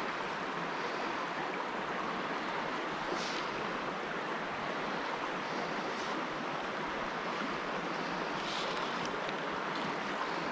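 Creek water running, a steady rushing wash with a few faint brief splashes on top.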